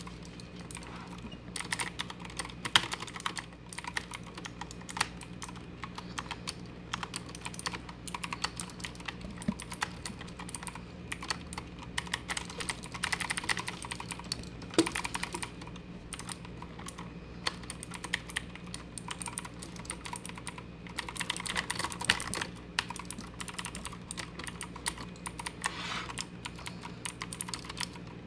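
Motospeed CK61 mechanical keyboard with blue switches clicking in rapid, irregular bursts as keys are hammered during gaming.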